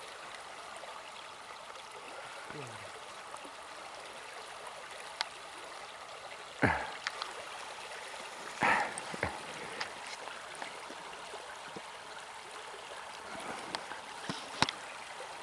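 River water flowing steadily, with a few brief sharp sounds about seven and nine seconds in.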